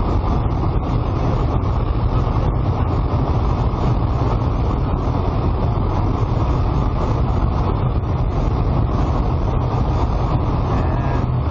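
Steady, loud in-flight noise of a light propeller aircraft, engine drone and rushing air heard from inside the cockpit.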